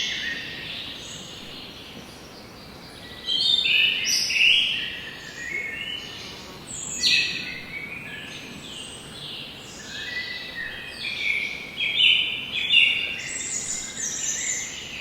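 Several forest songbirds singing and calling at once, with short, high chirps and trills overlapping. There is a brief lull about a second in, and the singing grows busy again from about three seconds.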